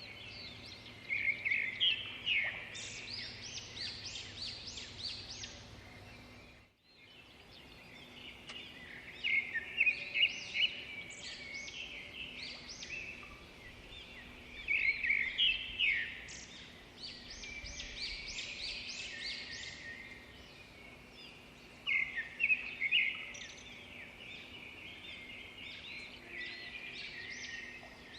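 Small birds chirping and twittering: bursts of quick, high chirps every few seconds, with a brief gap about seven seconds in.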